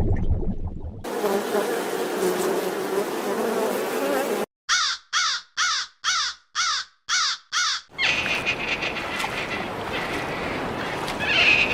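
A crow cawing: seven short, harsh calls in quick succession, about two a second, between stretches of steady buzzing noise before and after.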